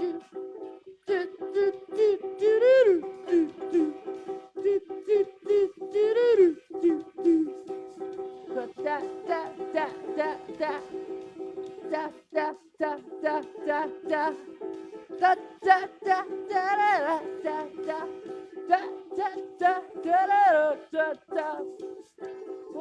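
Acoustic guitar strummed in a steady rhythm, with a few wordless sung notes sliding in pitch between the strums.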